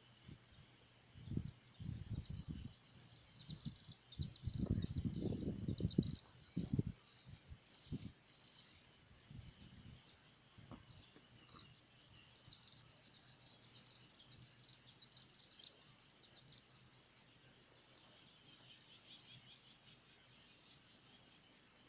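Small birds chirping in quick high clusters throughout. In the first half there is a run of louder low bumps and rumbles.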